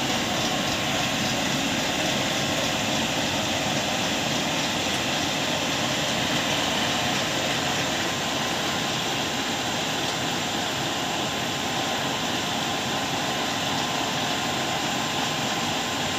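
Converted e-rickshaw electric motor spinning a belt-driven pulley and large flywheel, running at steady speed: an even mechanical whir with a faint steady whine in it.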